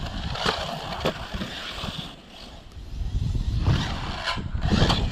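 Arrma Typhon 6S RC buggy jumping and landing badly: its brushless motor whines and the chassis knocks against the ground several times, over wind rumble on the microphone.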